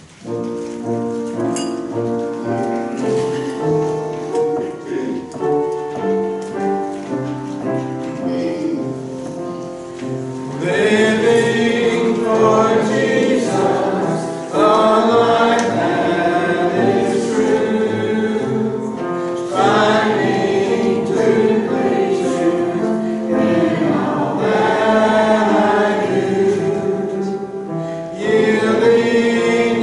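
Congregation singing a hymn with instrumental accompaniment. About the first ten seconds are an instrumental introduction of held chords; then the voices come in, louder, phrase by phrase.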